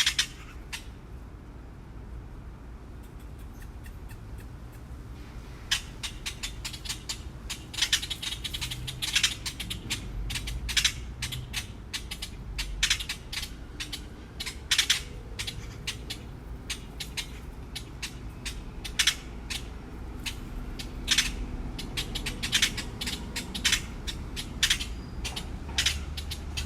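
Magpies squawking and chattering in harsh, rattling calls, a few at first and then many in quick, overlapping runs from about five seconds in, over a steady low background rumble.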